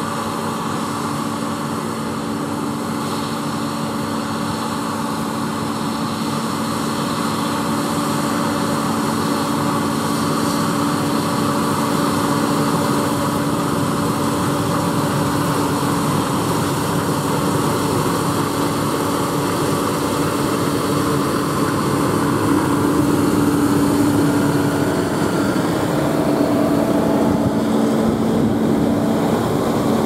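New Holland CR combine harvester running steadily while cutting wheat and unloading grain, with a John Deere tractor running alongside; a constant engine and machinery drone that grows gradually louder as the machines approach.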